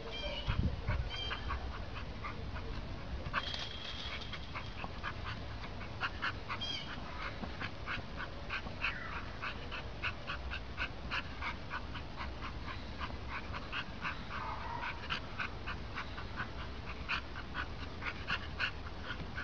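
A small dog making quick, short sounds over and over, several a second, with one short higher sliding whine about three-quarters of the way through, over a steady low rumble.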